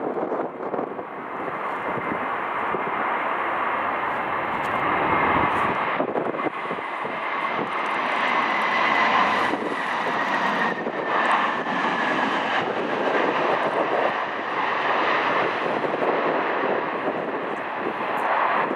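Aircraft engines running loudly and steadily as a plane passes, with a high whine that slowly falls in pitch.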